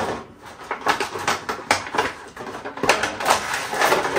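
Plastic action figures and their small accessories being handled, giving a run of irregular light clicks and rustles.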